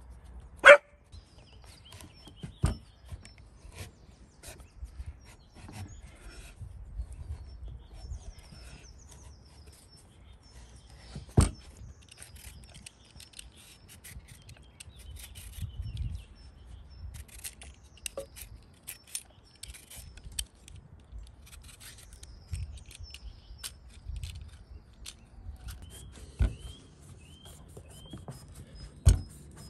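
A handful of sharp, isolated knocks and clicks, the loudest near the start and a few more spaced out over half a minute, between smaller ticks and scraping, with faint bird chirps in the background.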